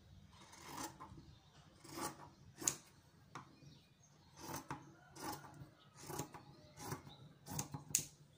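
Fabric shears snipping through thin dress fabric, one cut after another, about one snip every three-quarters of a second, with the cloth rustling between cuts.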